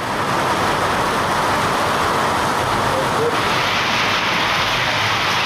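Heavy rain falling steadily on metal-sheet roofs and parked cars, an even, loud hiss; its tone changes a little about three seconds in.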